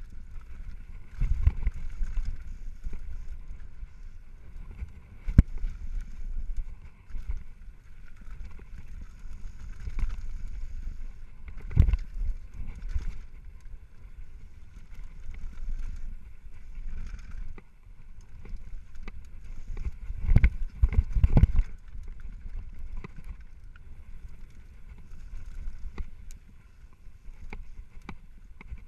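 Downhill mountain bike running fast over a dirt trail, heard from a camera on the rider: a steady low rumble of tyres and air, with the bike rattling. Sharp knocks come as it hits bumps, the loudest about twelve seconds in and a cluster of them around twenty to twenty-one seconds in.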